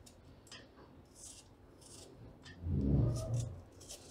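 Vegetable peeler scraping strips of peel off a raw potato, several short crisp strokes in a row. About three seconds in, a brief low hum is the loudest sound.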